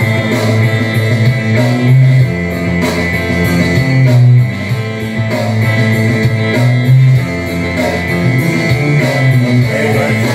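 Loud karaoke backing track playing rock-style music with guitar and a bass line.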